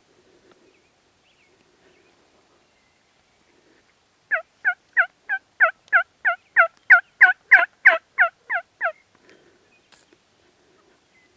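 A run of about fifteen turkey yelps, roughly three a second, building in loudness and then tapering off: a hen-style yelping sequence.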